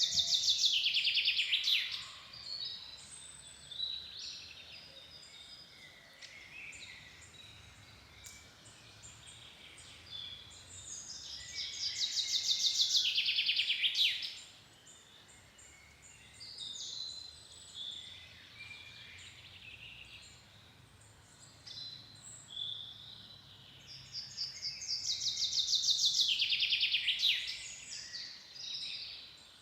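A songbird singing a fast trill of repeated notes that falls in pitch and grows louder before stopping abruptly, three times about twelve seconds apart. Other birds call faintly between the songs.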